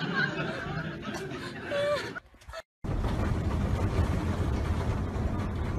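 A woman's voice with short snickering sounds, cut off about two seconds in. After a brief silence, the steady low rumble and road noise of a moving bus, heard from inside.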